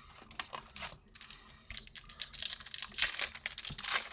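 Foil wrapper of a hockey card pack crinkling and tearing as it is opened: rapid crackling clicks that grow denser and louder from about two seconds in.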